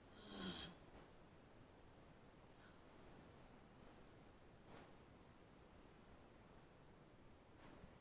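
Near silence, broken by faint short squeaks and soft clicks; the loudest squeak comes about half a second in.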